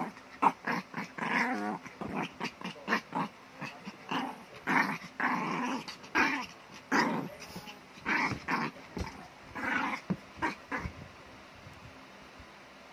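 Small shaggy dog growling in a rapid string of short play-growls while wrestling with a hand, the bursts thinning out and fading near the end.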